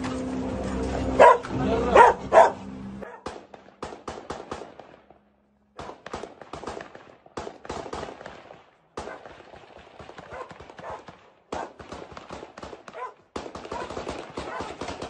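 A dog barks a few times in the first seconds over a steady low hum. After that comes a long run of irregular, sharp crackles and cracks with short breaks between them.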